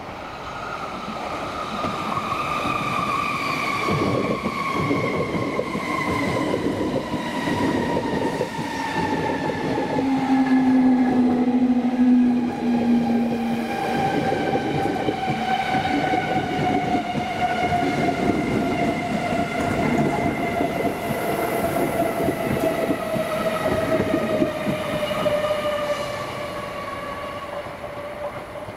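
Class 321 electric multiple unit running through the station and slowing: its traction motors give a long whine that falls steadily in pitch, over the rumble of wheels on the rails. A brief low steady tone sounds about ten seconds in.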